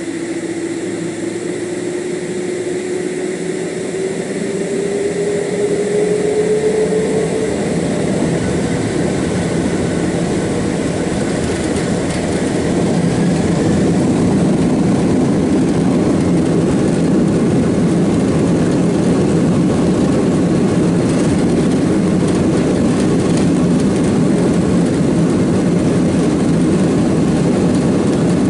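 Jet airliner's engines spooling up to takeoff thrust, heard from inside the cabin: a whine rising slowly in pitch over the first several seconds, the noise growing louder about five seconds and again about thirteen seconds in, then holding steady and loud for the takeoff run.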